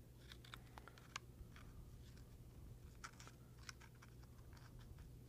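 Faint, irregular snips and clicks of small Xuron mini scissors cutting a decal sheet, the sharpest about a second in, over a faint low hum. Otherwise near silence.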